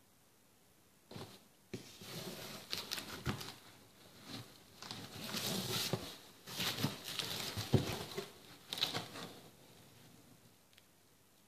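A taped cardboard parcel being opened by hand: irregular rustling, scraping and crinkling of cardboard, plastic tape and bubble wrap, starting about a second in and dying down near the end, with a sharp knock about eight seconds in.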